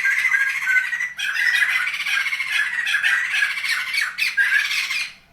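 A bird chattering loudly and without let-up, a rapid stream of harsh, squawky calls with a brief break about a second in, stopping shortly before the end.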